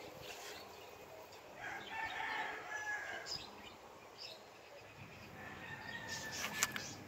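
A rooster crows once, faintly, about two seconds in, with a weaker call later on. A few short clicks come near the end.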